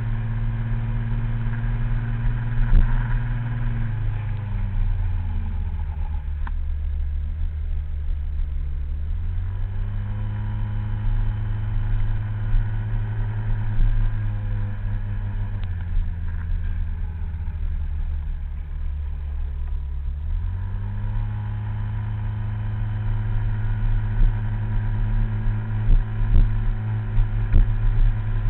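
Small motor scooter's engine running on the move, its pitch falling and rising again twice as the rider slows down and speeds back up. A few sharp knocks near the end.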